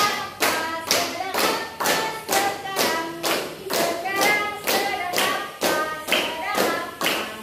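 A class of students clapping hands together in a steady rhythm, about two and a half claps a second, while voices chant along in a sing-song.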